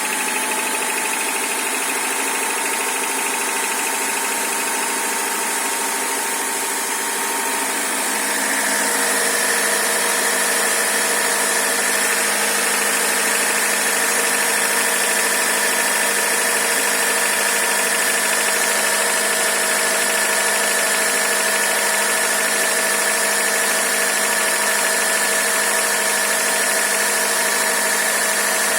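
Honda Civic D15B 1.5-litre four-cylinder engine idling cold with a knock, whose cause the owner does not know. About eight seconds in, the engine note shifts and grows slightly louder, then holds steady.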